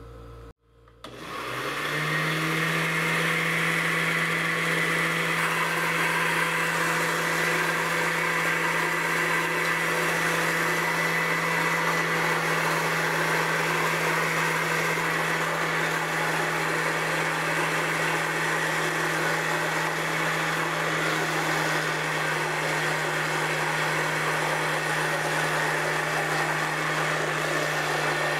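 Oster countertop blender motor starting about a second in, spinning up to speed and then running steadily, blending a thin sugar syrup.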